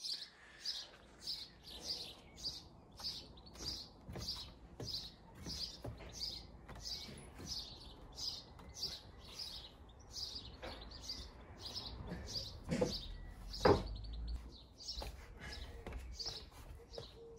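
A small bird chirping over and over, about two short, high chirps a second. In the second half come a few sharp knocks, the loudest nearly fourteen seconds in: footfalls on timber ladder steps.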